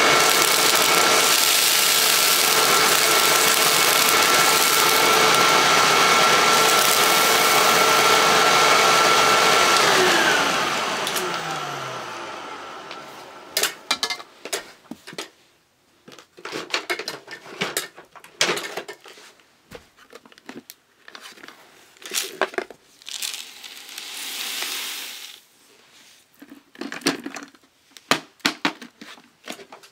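Hoover WindTunnel self-propelled bagless upright vacuum (model U6630) running steadily with a high whine over its motor noise. About ten seconds in it is switched off, and the motor winds down in a falling whine over a few seconds. After that come scattered rustling and clattering handling noises as debris is emptied onto the carpet.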